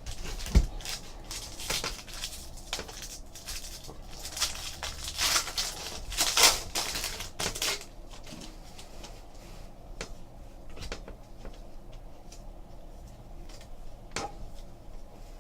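Trading card pack wrappers crinkling and tearing and cards being handled, with a dull knock about half a second in. The crackling is densest over the first several seconds, then thins to scattered clicks as the cards are sorted.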